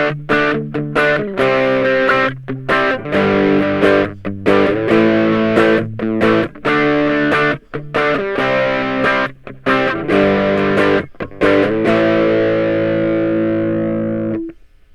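Ibanez GAX30 electric guitar played through a TC9-type medium-gain overdrive pedal, with a crunchy, creamy distorted tone. The chords are strummed in a rhythm broken by short muted stops, and the last chord is held for a couple of seconds before it is choked off shortly before the end.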